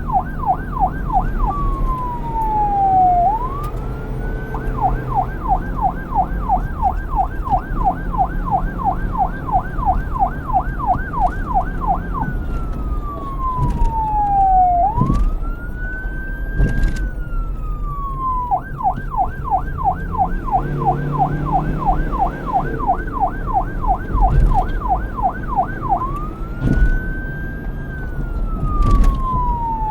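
Police car electronic siren switching between a fast yelp, about three or four up-and-down cycles a second, and a slow wail with a long falling sweep and a slow rise. The pattern repeats several times over a low road rumble.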